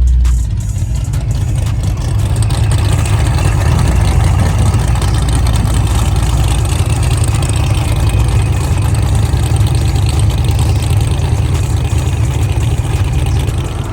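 Race car engines running with a loud, deep, steady rumble at low road speed, heard from a car with its windows down.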